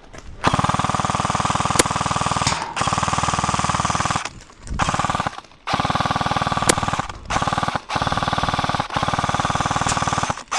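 Airsoft electric gun firing long full-auto bursts, a fast, even rattle broken by several short pauses.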